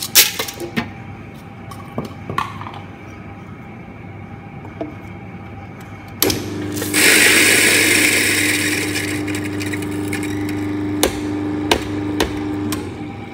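Frozen coffee beans clatter into the hopper of a Mahlkönig EK43 flat-burr grinder. About six seconds in the motor starts with a steady hum and grinds them at its coarsest setting, a loud grinding noise that eases as the beans run through. It stops near the end, after a few knocks.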